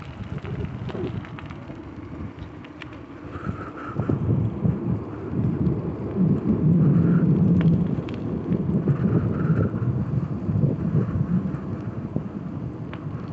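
Wind buffeting the microphone over the tyre noise of a mountain bike ridden fast on a tarmac lane, with scattered clicks. The rumble swells about four seconds in and is loudest around seven seconds.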